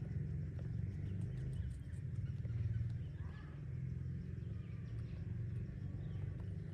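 Outdoor ambience: a steady low rumble runs throughout, with faint bird chirps and short calls above it.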